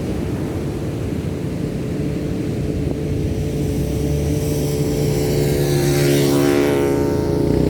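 A motor vehicle's engine drawing close, getting steadily louder from about halfway in, over the wash of the surf.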